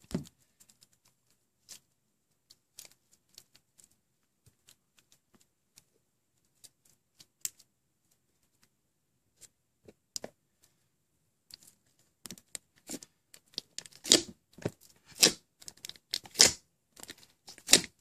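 Hand-worked slime popping: a large batch of thick, stretchy slime being pulled and pressed, giving scattered small pops and clicks, then a dense run of louder pops about two-thirds of the way in.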